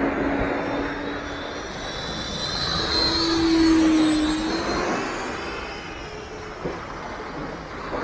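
Dynam Meteor V3's 12-blade 70 mm electric ducted fan whining as the RC jet makes a low pass, growing louder to a peak about three to four seconds in and then fading as it flies away.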